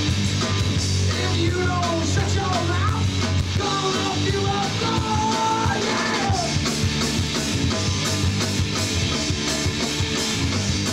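Live punk rock band playing loudly: drum kit, distorted electric guitars and bass, with singing over it in roughly the first half.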